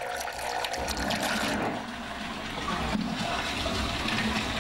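Watery paper pulp sloshing and swirling in a steel container, splashy and busiest for the first second and a half, then a steadier rush of liquid.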